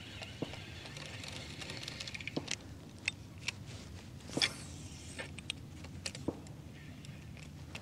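Scattered light ticks and taps of fishing tackle and the kayak's deck as a topwater lure is cast and reeled in, over a low steady background hum.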